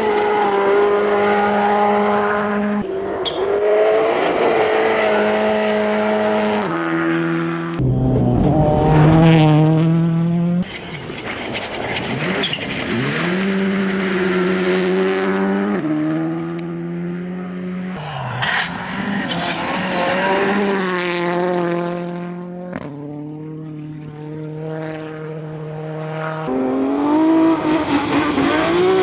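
Rally cars at full throttle, engines revving high and changing gear, with the engine note rising and dropping. The sound cuts abruptly every few seconds from one car to the next.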